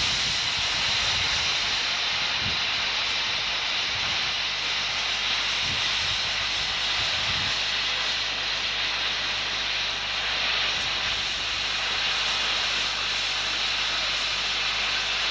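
Standing LMS Stanier Class 5 4-6-0 steam locomotive No. 5231 hissing steam steadily, with a few low bumps in the first half.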